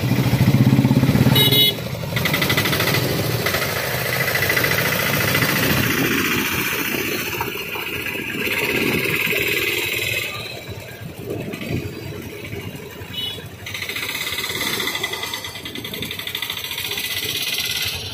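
Motorcycles and auto-rickshaws pulling away across a railway level crossing as the traffic moves off: a mix of small engines running and accelerating, loudest in the first two seconds, with occasional horn beeps.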